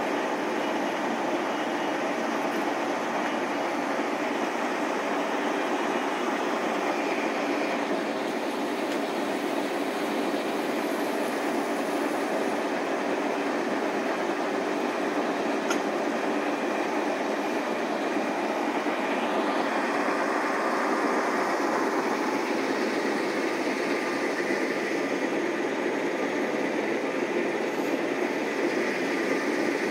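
Wirtgen cold milling machine running: a steady, heavy mechanical rumble and grinding at an even level, slightly louder after about twenty seconds.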